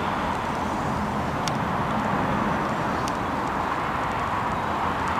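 Bombardier Global Express business jet's rear-mounted turbofan engines running at idle as it taxis: a steady, even rushing noise with a low rumble beneath.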